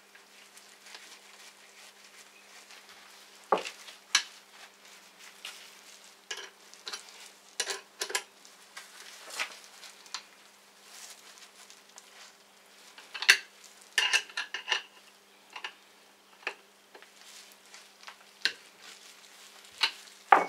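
Metal tools and fork parts clinking and knocking at irregular intervals as a clamp is fitted onto a motorcycle fork leg to seat a new fork seal, with a cluster of sharp clinks in the middle. A faint steady hum runs underneath.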